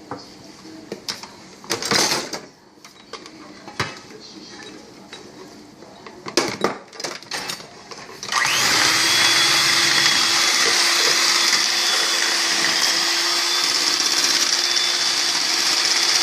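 A few knocks and kitchen clatter, then about eight seconds in an electric mixer starts up and runs at a steady speed, whipping boiled potatoes with garlic-infused milk into mash.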